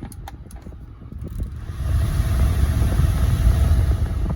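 A few light clicks, then the HVAC blower motor ramps up over about half a second and runs steadily at high speed, air rushing through the dash vents. It runs smoothly, with no abnormal noise from the motor.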